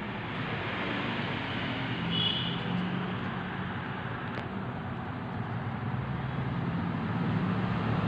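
Steady background noise: a low hum under an even hiss, with a brief high-pitched tone about two seconds in and a faint click a little after four seconds.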